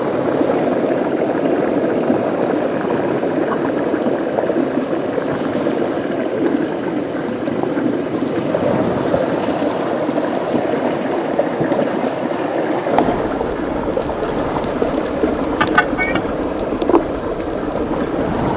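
Steady rush of river water with a thin, high, steady insect drone over it. About thirteen seconds in, a deeper rumble joins, and scattered sharp ticks follow.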